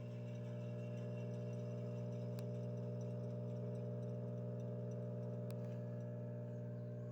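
Electrolux washing machine in its spin cycle, the drum spinning at a steady speed with a constant low hum. Two faint clicks come through, about two and a half and five and a half seconds in.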